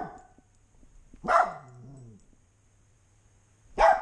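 Dog barking while left home alone: one bark about a second in that trails off into a low, falling tail, then another bark at the very end.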